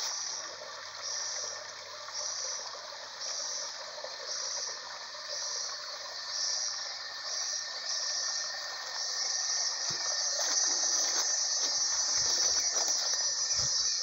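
Forest insects buzzing high and shrill in regular pulses about once a second, the pulses running together into a steady buzz about two-thirds of the way through. Footsteps on leaf litter thud a few times near the end.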